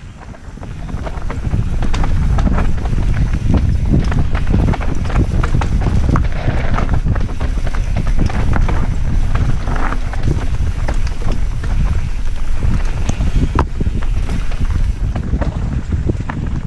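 Wind buffeting the microphone of a helmet camera on a fast mountain-bike descent of a dirt trail, with tyre noise and frequent clicks and rattles from the bike over the rough ground. The rumble builds over the first couple of seconds as the bike picks up speed, then holds.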